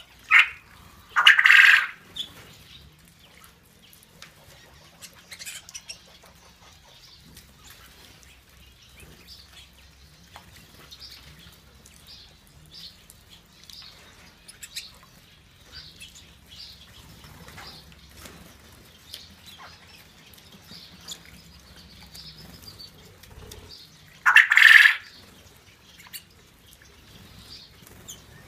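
Budgerigars chirping and twittering around a water dish, with loud short bursts of wing-fluttering and splashing as birds bathe: one at the very start, one about a second in, and one near the end.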